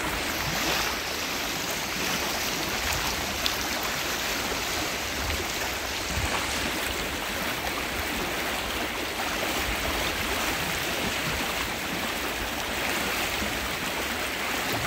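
Fast-flowing river rushing steadily over its rocky bed.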